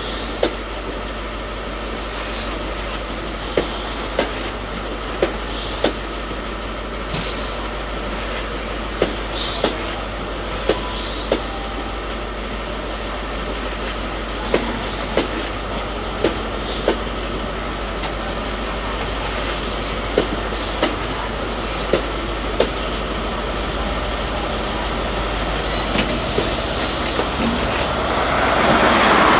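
High Speed Train's Mk3 coaches rolling slowly past, their wheels clicking over rail joints, often in pairs, with brief high wheel squeals. Near the end the power car's diesel engine gets louder as it draws level.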